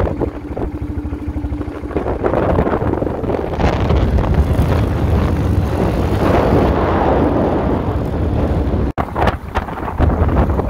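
ATV engine running under way across sand, with heavy wind buffeting the microphone.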